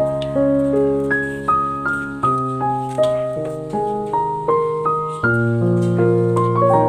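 Background piano music: a melody of struck notes, about two a second, over held low notes.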